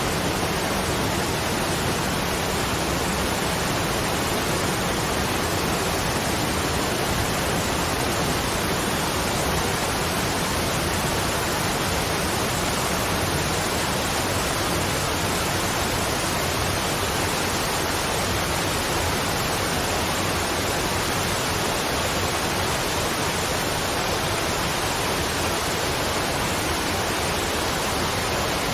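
Waterfall: a steady, unbroken rush of falling water that never changes in level.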